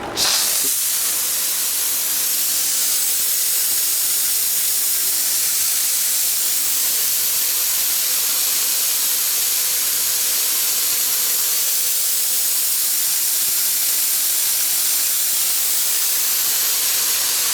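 TIPTOP TP-T60 vertical LED fog jet machine firing a continuous jet of fog: a loud, steady hiss that starts abruptly, with a faint steady hum underneath.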